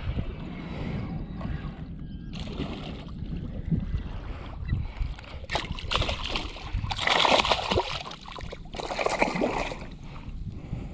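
Water splashing and sloshing, with two louder stretches of splashing about six and nine seconds in, over a low rumble.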